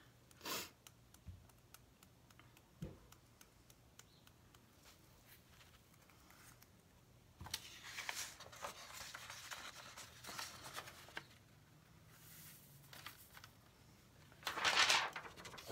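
Dry, scratchy rustling of loose glitter being swept and rubbed by hand across a sheet of paper, with many fine ticks, from about halfway through. Near the end a short, louder rustle as the paper sheet is picked up.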